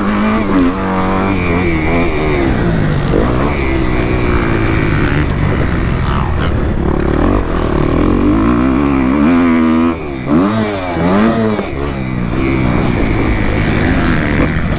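Kawasaki KX250F dirt bike's four-stroke single-cylinder engine, ridden hard on a motocross track, its revs rising and falling with throttle and gear changes. The throttle drops off briefly about ten seconds in, then picks back up.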